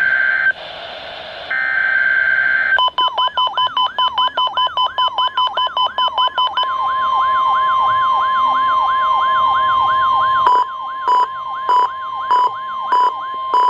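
Emergency Alert System tones on NOAA Weather Radio. First come two short buzzy SAME data bursts. Then the steady warning alarm tone plays, with a fast warbling sweep over it at first, about four a second. From about ten seconds in it breaks into beeps a little under twice a second.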